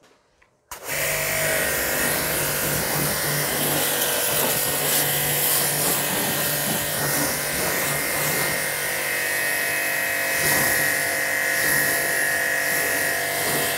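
Aimex D7 1800-watt electric high-pressure car washer running steadily, its motor and pump humming under the hiss of the water jet spraying onto a car's body. It starts about a second in and cuts off abruptly at the end.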